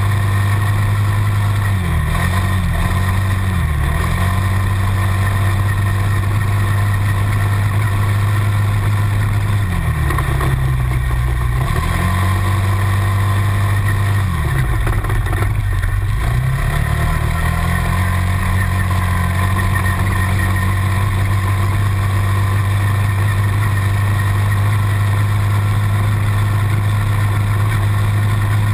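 Quad bike engine, the TGB Target 325's single-cylinder four-stroke, running steadily under throttle on a dirt-track climb. Its revs dip and pick up again a few times: briefly about two seconds in, and more deeply around ten and fifteen seconds in.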